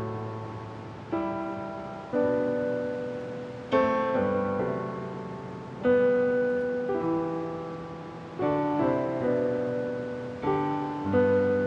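Solo piano playing slow chords, each one struck and left to fade before the next.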